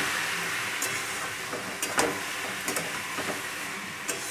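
Bottle gourd curry sizzling steadily in a hot metal kadai, with a spatula scraping and knocking against the pan a few times as it is stirred.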